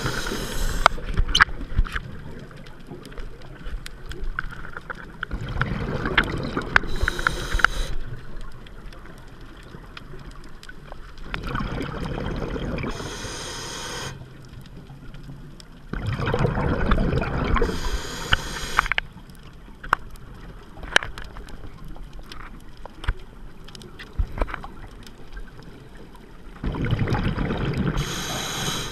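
Scuba diver breathing through a regulator underwater: several slow breaths, each a swell of noise ending in a rush of exhaled bubbles, with scattered sharp clicks in between.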